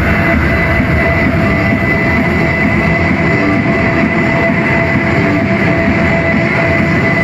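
Loud electronic dance music from a DJ set mixed with crowd noise, a dense wash with held high synth tones over it.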